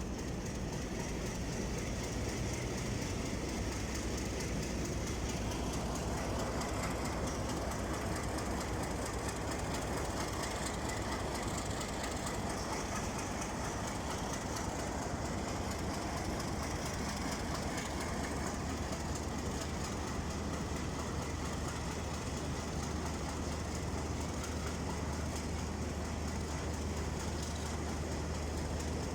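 A passenger train moving along the tracks, its wheels on the rails giving a continuous running noise. A diesel locomotive's low, steady engine note grows stronger about two-thirds of the way through.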